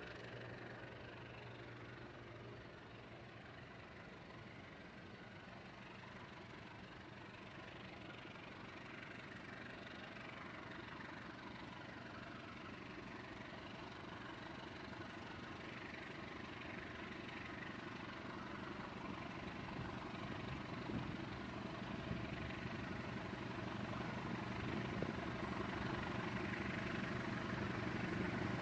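Diesel engine of a CC 201 diesel-electric locomotive running steadily as it approaches hauling a train. Its drone grows gradually louder throughout.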